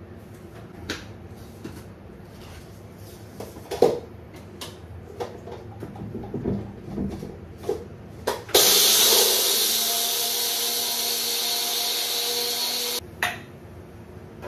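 Meal preparation in a kitchen: scattered clicks and knocks of utensils and containers being handled. About eight seconds in, a loud steady rushing noise starts abruptly, fades slightly and cuts off abruptly after about four and a half seconds, followed by one more knock.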